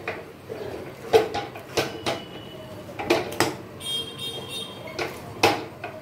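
A metal ladle scraping and knocking against a metal kadhai as thick, stiff semolina dough is stirred and gathered, giving irregular clanks about once a second.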